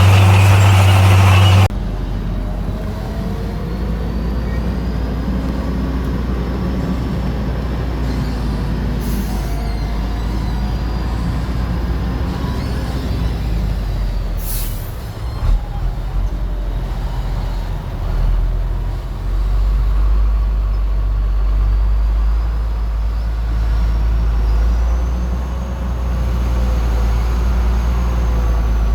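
Heavy diesel construction machinery running with a steady low engine rumble, with a short hiss of released air about halfway through. A louder, different low hum in the first second and a half cuts off abruptly.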